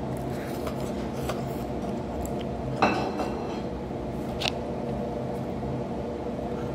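A utensil clinks sharply against a ceramic bowl about three seconds in, and more lightly about four and a half seconds in, over a steady background hum while eating.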